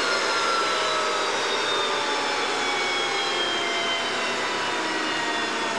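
Tejas light combat aircraft's General Electric F404 turbofan running on the ground: a steady loud rush with a whine that falls slowly in pitch as the engine winds down.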